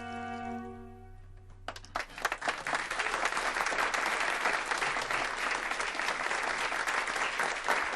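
A held musical chord dies away in the first second or so, then an audience breaks into applause about two seconds in and keeps clapping steadily.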